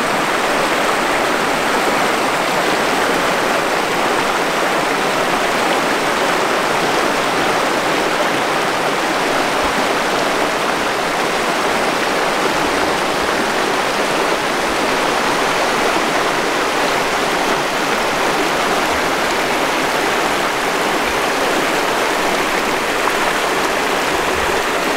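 A shallow mountain river rushing steadily over rocks and boulders through white-water riffles.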